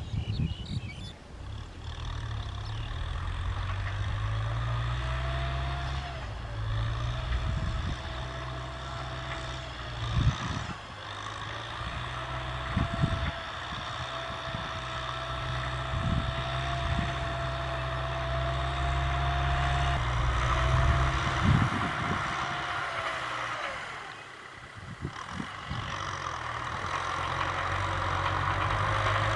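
Tractor diesel engine running under load, with a steady whine above the engine note and a few short clunks along the way. The engine fades briefly about three-quarters of the way through, then grows louder again toward the end.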